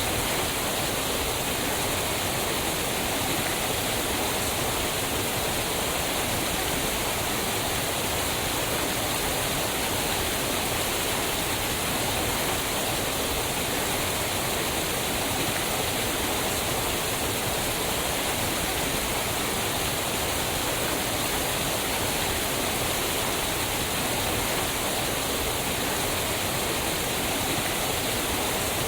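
Waterfall, water falling and rushing over rocks in a steady, unbroken roar.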